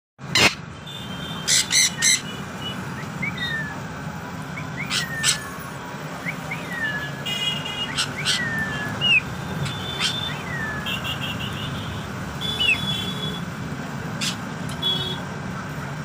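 African grey parrot whistling: many short, high whistles that fall in pitch, with a few short runs of quick high notes and several loud sharp clicks among them, over a steady low hum.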